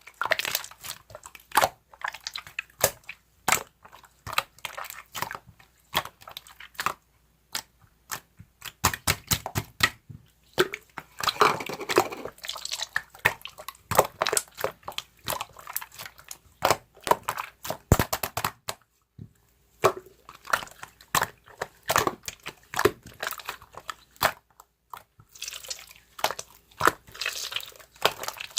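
Slime being squished and pressed by hand: a fast, irregular run of sticky clicks and pops with squelching between them, pausing briefly now and then.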